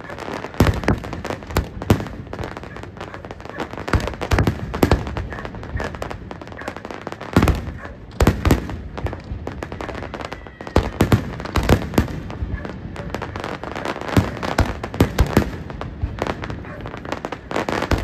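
Aerial fireworks display: a dense barrage of shell bursts, sharp bangs coming several a second in irregular clusters.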